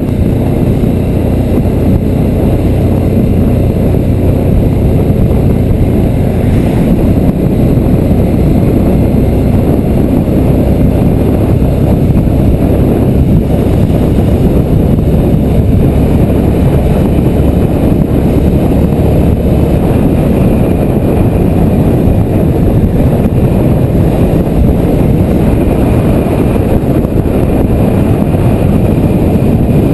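Motorcycle riding steadily at road speed, heard from a bike-mounted camera: a loud, even rush of wind on the microphone mixed with engine and road noise, heaviest in the low end.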